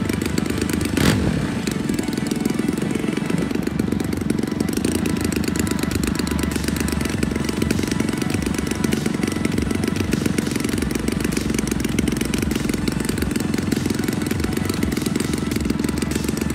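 The engine of a 40%-scale L4 Grasshopper model plane running steadily at low throttle, its propeller turning as the plane sits on the ground ready for takeoff. A brief knock about a second in.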